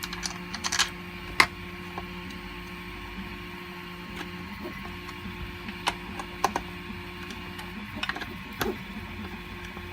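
Steady hum of a 3D printer running, with scattered sharp clicks and knocks as 3D-printed plastic parts are handled and M4 bolts are screwed through into their nuts; the loudest click comes about one and a half seconds in.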